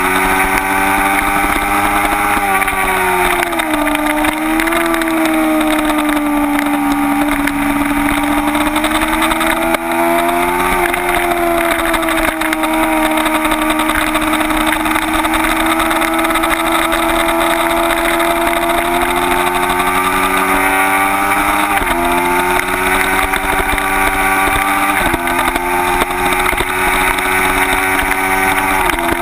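Kawasaki Ninja 250's parallel-twin engine running hard at high revs, with wind rush at the tail-mounted camera. The engine note falls about three seconds in, climbs slowly and holds steady for a long stretch, then steps down sharply twice near the end.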